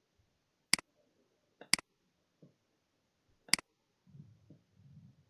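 Three sharp computer mouse clicks, each about a second or two apart, with a few fainter clicks between them, then a faint low murmur near the end.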